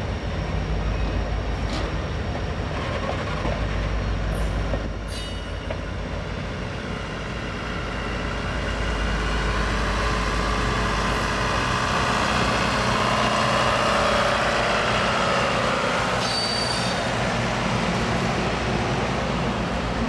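Train cars rolling past with a steady wheel-and-rail rumble and a few sharp clicks. Faint wheel squeal rises in the middle and is loudest a few seconds before the end.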